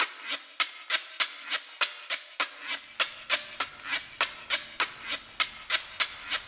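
Steady, evenly spaced clicking, about three clicks a second, with a faint low hum coming in about halfway through.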